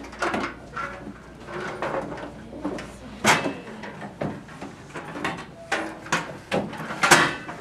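A string of knocks and clacks as metal folding chairs and music stands are handled and set up, the loudest a little over three seconds in and again near the end.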